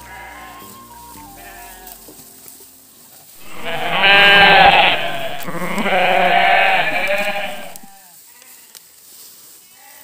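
Sheep bleating: two long, loud, wavering bleats starting about three and a half seconds in and fading out near the end, over quieter background music.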